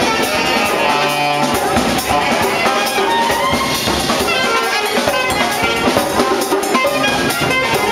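A street brass band playing: brass horns over a drum kit and hand drum, keeping a steady beat.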